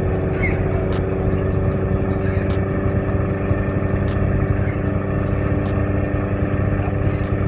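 Steady engine hum and road noise heard from inside a car's cabin while driving.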